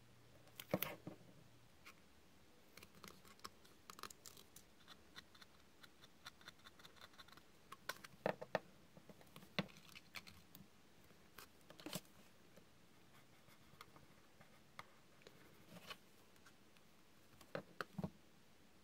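Handling noises of white card and paper on a cutting mat: scattered light taps and rustles, with a marker pen scratching on card. The sounds are faint between the taps.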